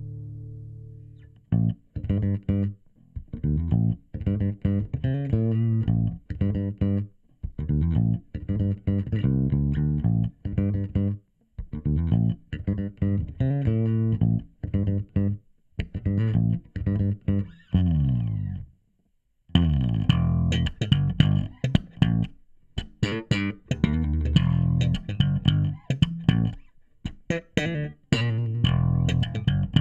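An acoustic guitar chord rings out and fades in the first second or so. Then an electric bass guitar is played through a Markbass bass amp and cabinet, a line of short plucked notes with a brief pause about two-thirds of the way through.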